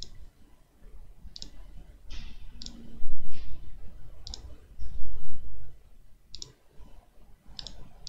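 Computer mouse button clicks, about six sharp clicks spaced a second or more apart, as lines are placed point by point in a CAD sketch. Low rumbling noise comes and goes underneath and is loudest about three and five seconds in.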